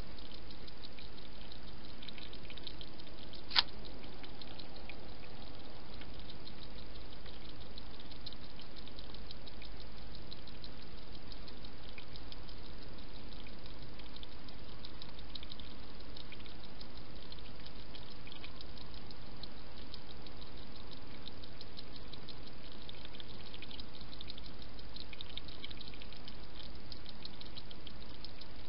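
A European hedgehog feeding at a dish, its mouth making a rapid, irregular run of small wet clicks over a steady hiss. There is one sharper click about three and a half seconds in.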